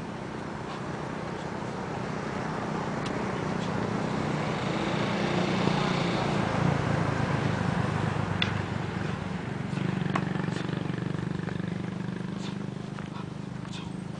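A motor vehicle's engine running as it passes, the hum growing louder to a peak about halfway through, dipping, then swelling again and fading. A few sharp clicks sound over it.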